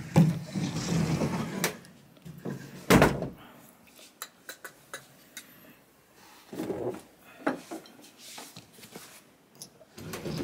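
Sneakers being rummaged out of a closet shoe rack and handled: rustling, scattered clicks and knocks, and one loud thump about three seconds in.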